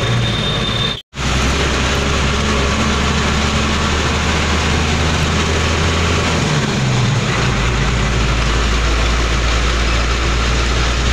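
Truck's diesel engine droning steadily with road noise, heard from inside the cab while driving. The sound drops out for an instant about a second in, and about two thirds of the way through the engine note shifts lower.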